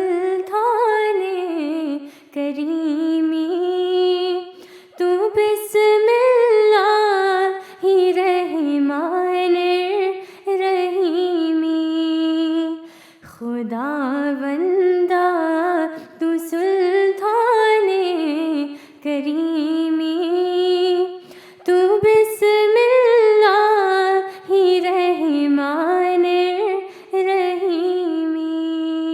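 A solo voice singing unaccompanied, a slow, ornamented devotional chant with long held notes, phrase after phrase with short breaths between.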